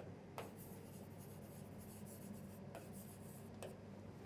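Marker pen writing on a whiteboard: faint rubbing strokes with three short clicks as the pen touches down.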